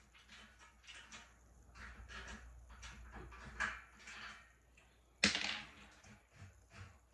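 Bed frame being taken apart: scattered clicks, scrapes and knocks of parts being handled, with one sharp knock about five seconds in.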